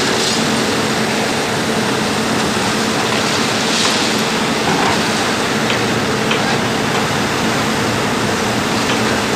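Heavy machinery running steadily during a track-panel lift: a constant engine hum under a loud, even rushing noise.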